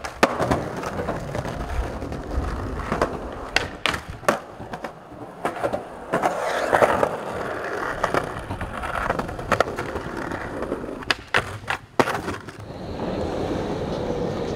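Skateboards rolling on concrete, the wheels rumbling, with many sharp clacks of tail pops and board landings scattered through, including a quick cluster of four near the end.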